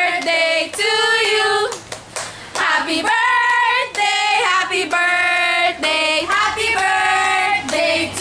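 Several young women singing together in long, held notes, with some hand clapping.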